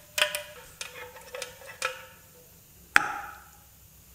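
Metal parts and tools clinking and tapping against a partly assembled motorcycle engine, a faint ringing under the first few clinks, then one sharp click about three seconds in.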